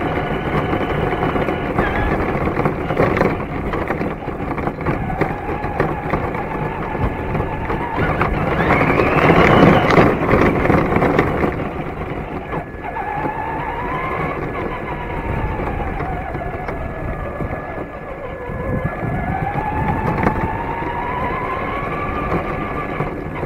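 Electric motor of a Traxxas Slash 2WD RC truck whining, its pitch climbing and falling again and again with the throttle, over a dense rumble of tyres on gravel, heard from a camera mounted on the truck. About ten seconds in, the rumble swells louder for a couple of seconds.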